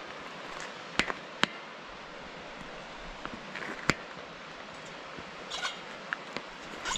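Footsteps going down outdoor steps: a few sharp footfalls, two close together about a second in and another near four seconds, over a steady rushing hiss.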